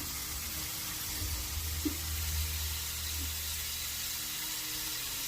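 Breaded chicken thigh strips frying in hot vegetable oil, a steady sizzle.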